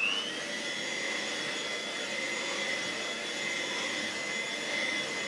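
Vintage Moulinex 250 hand-held mains vacuum cleaner switching on and spinning up, its whine rising briefly, then running steadily with a high-pitched motor whine over the rush of air.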